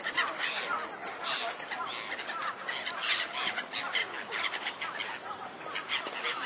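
A flock of gulls calling, many short cries overlapping continuously as the birds crowd in to be fed.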